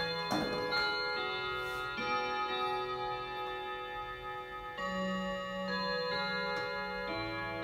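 ODO 62 pendulum wall clock chiming a slow melody on its 11 gongs struck by 11 hammers. New notes come one to two seconds apart, each ringing on under the next, over the ticking of the clock movement.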